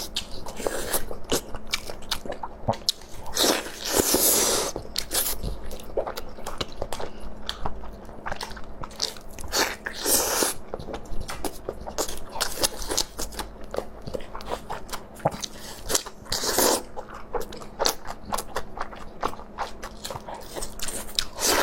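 A person biting and chewing crunchy food close to the microphone: a dense, irregular run of crunches and clicks, with a few louder, longer noisy bursts every several seconds.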